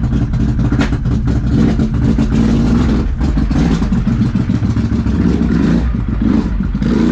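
Can-Am Renegade ATV's V-twin engine running loud through RJWC dual aftermarket exhausts, at low revs with small changes of throttle as the quad is moved out.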